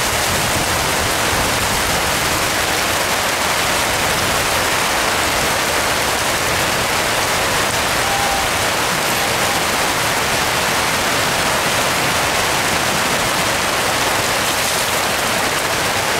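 Heavy rain pouring steadily in a downpour.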